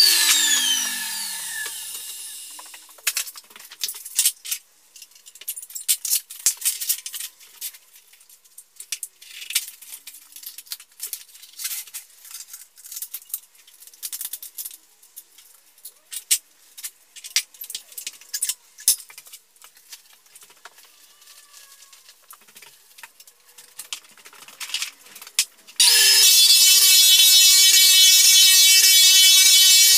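Walk-behind floor sander switched off, its motor winding down with a falling whine, followed by a long stretch of scattered small clicks and knocks as the machine is handled. Near the end the sander's motor starts again and runs at full speed.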